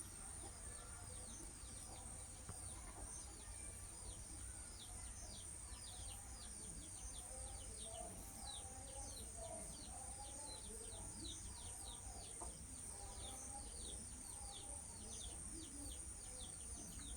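Baby chicks peeping: a steady stream of short, falling peeps, about three a second, over a faint steady high-pitched whine and a low hum.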